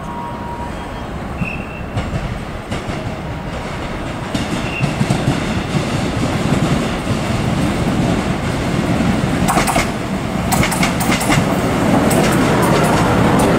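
Taiwan Railways EMU500 electric multiple-unit commuter train approaching and pulling into the station, its rumble growing steadily louder. From about nine and a half seconds in, the wheels clack over the track as the cars pass close by.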